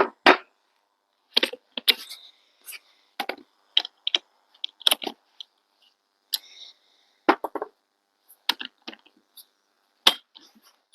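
Scattered clicks and light metallic clinks of tools and hardware being handled, with no drill motor running.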